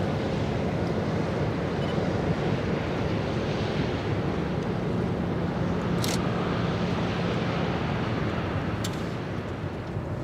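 Steady low drone of ship engines across the water, mixed with wind on the microphone and the wash of the water, with one faint tick about six seconds in.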